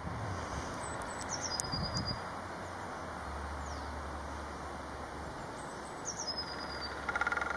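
Quiet outdoor woodland ambience with faint high bird chirps about a second in and again near the end. A low distant rumble runs through the middle, and a short, rapid knocking rattle comes just before the end.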